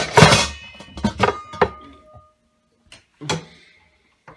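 Metal pots and lids being handled on a stovetop: a scraping clatter at the start, then a few knocks, one of which leaves a short ringing tone, followed by two more isolated thuds.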